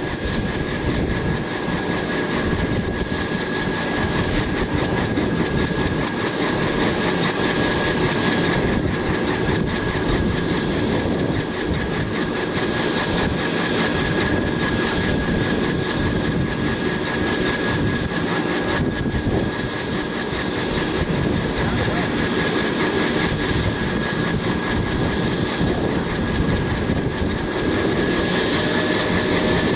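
Kaman HH-43 Huskie helicopter running on the ground with its intermeshing twin rotors turning: a steady engine rumble under a high whine, which climbs slightly in pitch near the end.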